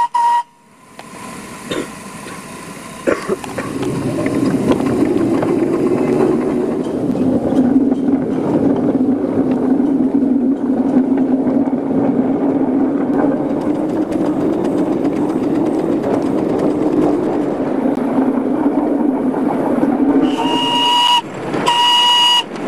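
Miniature live-steam locomotive, a model of DSB's F-class engine: a steam whistle blast cuts off about half a second in. A steady hiss and rumble of the engine under way follows. Near the end come two short whistle blasts about a second apart.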